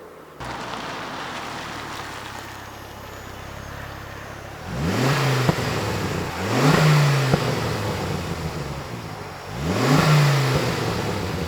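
Ford Focus ST Mk2's 2.5-litre turbocharged five-cylinder idling through its exhaust, then blipped three times, each rev rising and falling back to idle. There is a sharp click as each of the first two revs drops off.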